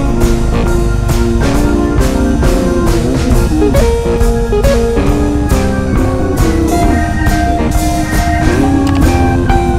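Background music: a guitar playing a melody of held notes over a steady drum beat.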